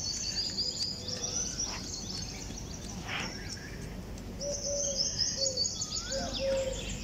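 Birds chirping: clusters of rapid high chirps in the first second or so and again from about halfway, with a few short, low, steady-pitched calls in the second half, over a steady background hiss.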